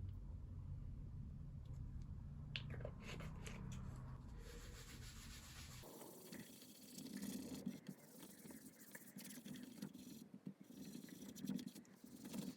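Faint scratchy rubbing of hand work on the guitar's wood, such as sanding or scraping. About halfway in the sound changes abruptly to a quieter run of repeated back-and-forth strokes.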